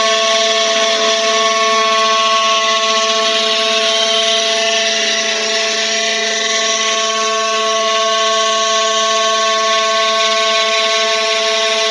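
DIY CNC router running: a steady motor whine made of several fixed tones over an even hiss, with no change in speed.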